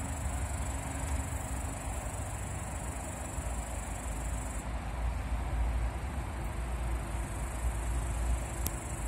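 Steady high-pitched insect trilling, crickets in the grass, that drops in level about halfway through, over a continuous low rumble.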